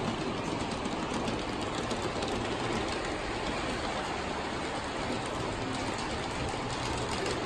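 G scale model train running on the layout's track: a steady rumble of wheels on rail with a few faint clicks.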